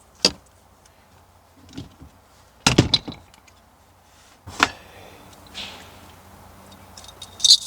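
Sharp clicks and knocks from car wiring-harness connectors and cables being handled: one just after the start, a loud cluster about three seconds in, another a little later, and light ticks near the end.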